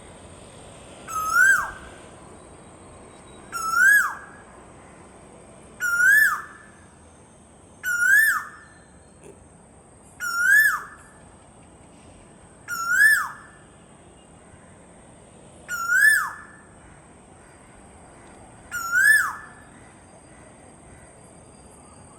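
Asian koel calling over and over, eight times, each call a rising note that drops off sharply. A faint steady high whine sounds throughout.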